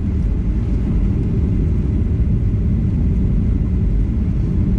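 Steady low rumble of a Boeing 737-900ER airliner inside the passenger cabin.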